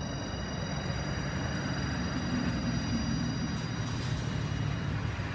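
Steady low rumble of nearby motor traffic, with a thin steady high whine that stops about four seconds in.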